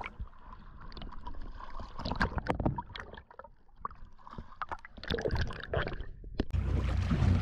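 Seawater sloshing and gurgling around a camera at the surface as it dips in and out of the water, with scattered sharp pops. About six and a half seconds in, this gives way suddenly to a steady rush of wind on the microphone.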